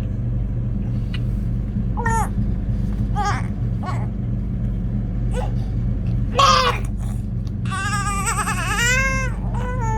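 High-pitched vocal cries: several short calls, a louder one about six and a half seconds in, then a longer wavering cry near the end, over a steady low electrical hum.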